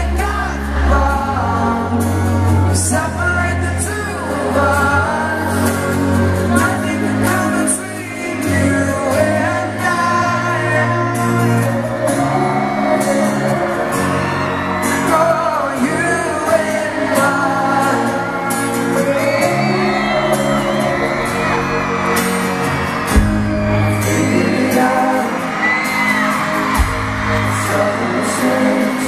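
Live pop ballad: male voices singing over a band with sustained bass notes, heard from the audience at a stadium concert.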